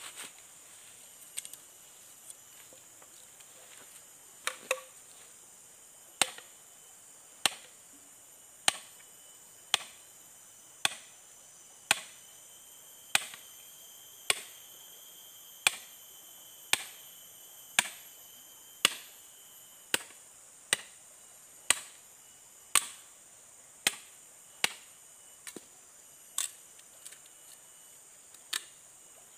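Steady chopping, sharp strikes about once a second, some twenty in a row, over a steady background drone of forest insects.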